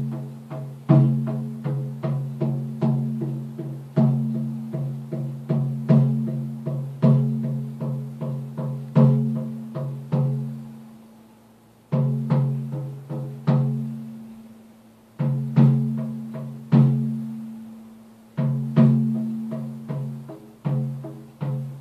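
Buffalo drum, a hand-held native frame drum, struck with a beater at about one to two strokes a second. Each stroke gives a low, pitched boom that rings and dies away. The strokes come in phrases, each opened by a louder hit, with two pauses where the ring fades out before the beating starts again.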